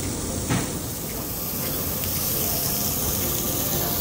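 Meat sizzling on a Korean barbecue tabletop grill plate, a steady hiss, with one short knock about half a second in.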